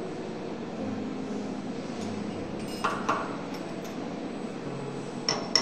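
Small steel pins and an Allen key clinking against a metal machine table, two quick clinks about three seconds in and two more near the end, over a steady workshop hum.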